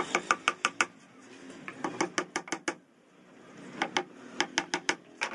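Small hammer tapping nails with quick, light blows in three runs, with short pauses between them, to fix a metal ball-bearing drawer slide to a particleboard cabinet side.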